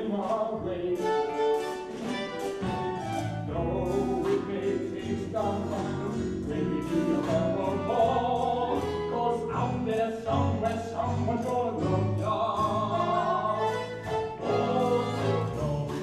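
Musical-theatre song performed live on stage: a singing voice over instrumental accompaniment, with no break.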